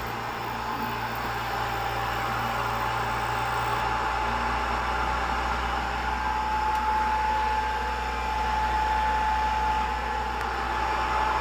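BGA rework station blowing hot air steadily while running its heating profile to reflow a laptop's PCH chip, a continuous rushing whir with a faint steady whine in it.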